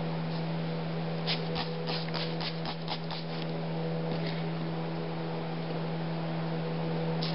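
Steel chisel edge being honed on abrasive paper in a honing jig: a quick run of about ten short scraping strokes, roughly four a second, in the first half, over a steady low hum.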